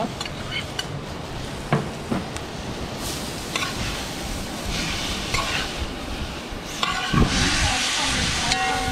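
Curried lobster with diced tomato and sweet pepper sizzling in a wide metal pot while a spoon stirs and scrapes it, with a few sharp clicks of the spoon on the pot; the sizzle grows louder about seven seconds in.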